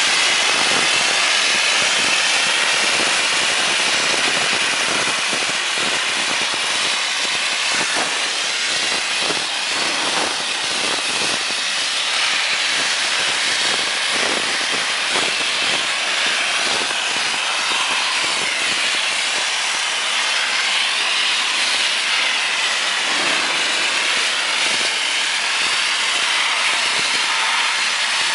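ICEsonic Mighty E dry ice blaster's nozzle blasting dry ice with compressed air onto machinery, a loud, steady hiss.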